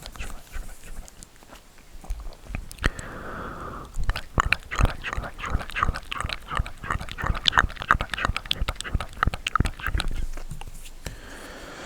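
Close-miked ASMR trigger sounds on a very sensitive microphone: a dense run of crackly clicks and taps, with brief hissy rubbing about three seconds in and again near the end.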